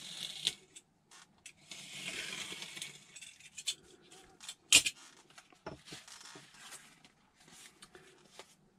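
Craft knife drawn through a foam glider wing sheet along a steel ruler, a scratchy rasp, followed by a sharp knock about five seconds in and the rustle and tapping of foam pieces and paper being handled.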